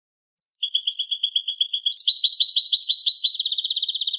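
European goldfinch singing: starting about half a second in, a phrase of fast, evenly repeated trilled notes that quickens about two seconds in, then a held high whistle near the end.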